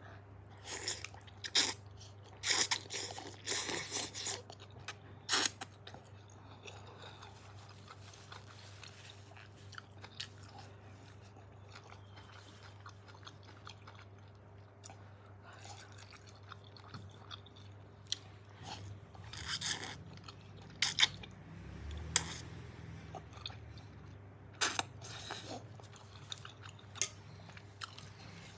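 A person eating close to the microphone: irregular clusters of chewing and crunching mouth sounds over a low steady hum.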